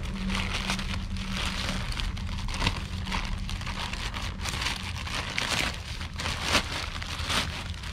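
Parcel packaging being unwrapped by hand: continuous crinkling and rustling with many small crackles, over a low background hum.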